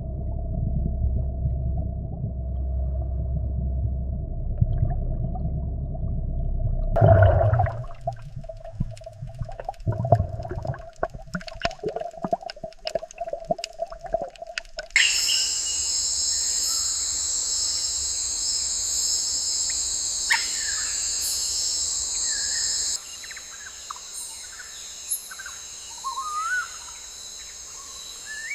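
A low rumble under a steady hum, then a stretch of irregular clicks and knocks from about seven seconds in. About halfway through, a steady high-pitched insect chorus with scattered bird chirps takes over, and it drops out near the end, leaving a few bird calls.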